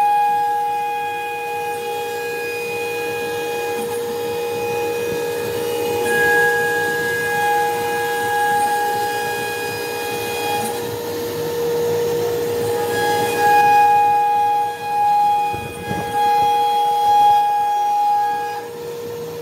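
Holztek RT1325V single-spindle CNC router cutting melamine-faced particleboard: a steady high-pitched spindle whine with overtones over a hiss, swelling and easing as the cut goes, with a couple of brief dips near the end.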